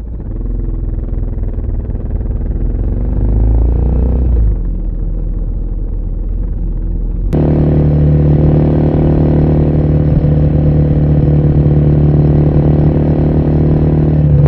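Suzuki DR650 single-cylinder engine running through an aftermarket exhaust, its note rising and falling gently in the first few seconds. About seven seconds in it cuts to another DR650 with a different exhaust, idling steadily with a deep, even note.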